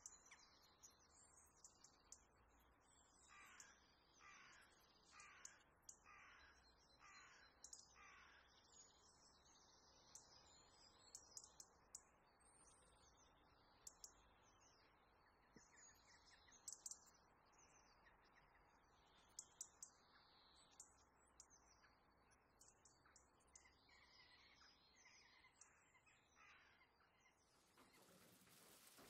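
Faint birds calling in the background: a run of about six falling calls roughly a second apart, then scattered high chirps.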